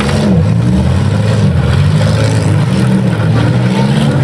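Demolition-derby car engines running hard on a dirt arena, revving up and down as the cars drive, reverse and manoeuvre.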